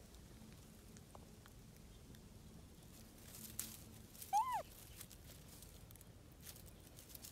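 Faint rustling and crackling of dry leaves and twigs as a young monkey moves about on the ground, with one short squeaky call, rising then falling, about four seconds in.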